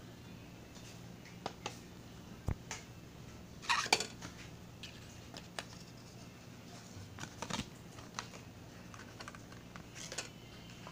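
Scattered light plastic clicks and taps of audio cassette cases being handled, with a louder clatter about four seconds in, over a faint steady hum.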